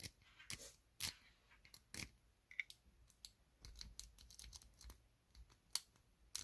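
Lock pick and tension wrench working inside a lock's keyway: faint, irregular small clicks and scrapes as the lock is picked.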